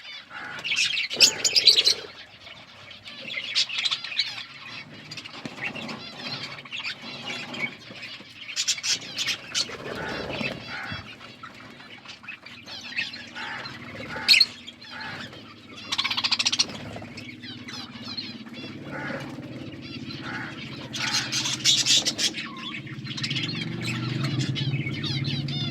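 Budgerigars chirping and chattering in repeated bursts, with scattered sharp clicks. A steady low hum comes up in the last few seconds.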